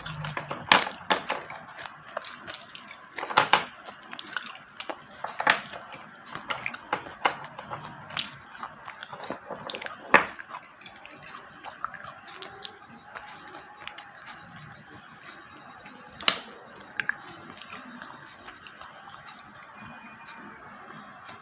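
Slate pencils being bitten and chewed: a string of sharp, crunchy cracks, close together for the first ten seconds or so, then sparser, with one loud crunch about sixteen seconds in.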